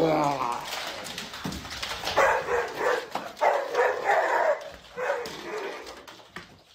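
A dog whining and yipping: a pitched call bending in pitch at the start, then a run of short, high calls from about two seconds in.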